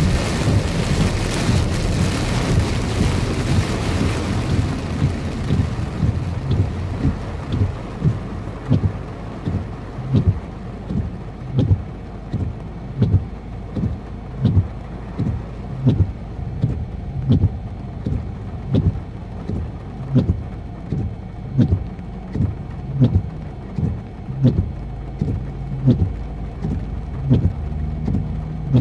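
Heavy rain on a car, loud at first and easing off within the first few seconds, then windshield wipers sweeping with a knock at each stroke about every 0.7 s, over a steady low engine and road rumble inside the car.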